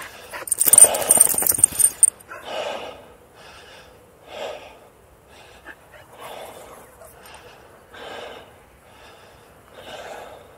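A man breathing hard after walking uphill, with a heavy breath about every two seconds. Near the start there is a loud rustling, crackling burst that lasts about a second and a half.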